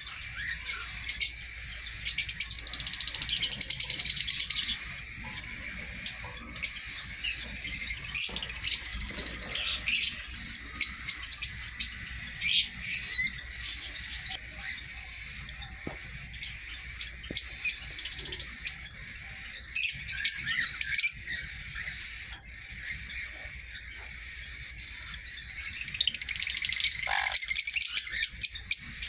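Small cage birds chirping and trilling, with short high-pitched calls and repeated bursts of rapid chatter, over a faint low hum.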